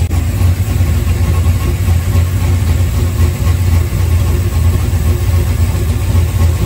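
LS V8 engine idling steadily as it warms up to operating temperature, heard up close in the engine bay by the belt drive.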